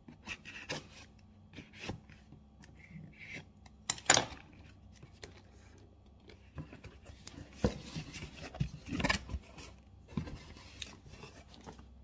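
Cardboard shipping box being opened by hand: scattered scrapes, rustles and clicks of the cardboard and its packing tape, loudest about four seconds in and again near nine seconds.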